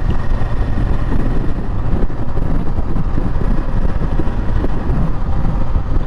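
Royal Enfield Interceptor 650's parallel-twin engine running at a steady cruise, mixed with a steady rush of wind and road noise on the microphone that is heaviest in the low end.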